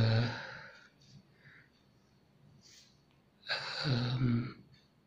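A man's voice sighing aloud twice with no words: a long sigh at the start that fades over about a second, and another about three and a half seconds in.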